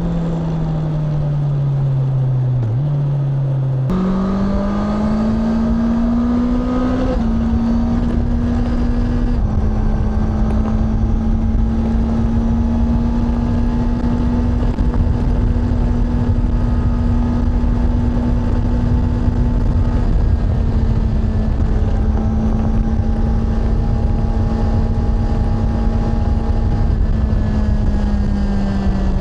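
Honda CBR650R E-Clutch's inline-four engine and exhaust under way: the revs fall for a few seconds, then jump up about four seconds in and climb before settling into a steady cruise. A steady rush of wind and road noise runs underneath.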